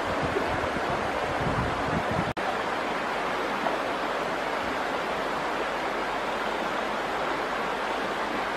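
Steady rushing outdoor noise of river water and wind on the microphone, with low wind buffeting in the first two seconds. The sound drops out for an instant just after two seconds in.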